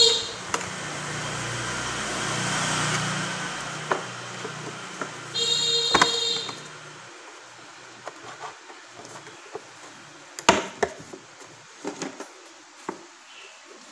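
A plywood board and a plastic electric-fan base handled and knocked together, with sharp knocks in the second half. Two short, loud high whines, the second about six seconds in, and a rushing noise over the first few seconds are heard alongside.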